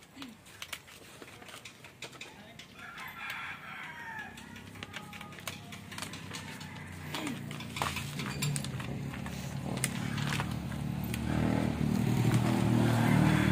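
A rooster crowing about three seconds in, with a few sharp clicks after it. Through the second half a motor engine grows steadily louder and is the loudest sound by the end.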